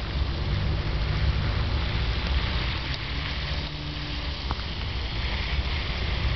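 Steady low rumble and hiss of wind buffeting the camcorder microphone, with a faint low hum in the middle.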